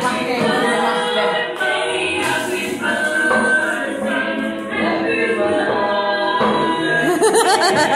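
A group of voices singing a song together, unaccompanied.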